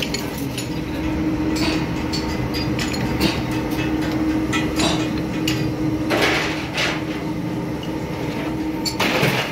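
Metalworking workshop noise: a steady machine hum under scattered metal knocks and clanks, with longer noisy rushes about six seconds in and again near the end.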